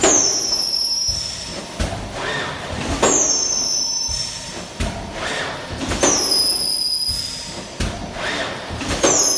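WM FC 780E thermoforming machine running in cycles, about one every three seconds. Each cycle opens with a knock and a high whine that falls in pitch over about a second, with a softer rising whine between strokes.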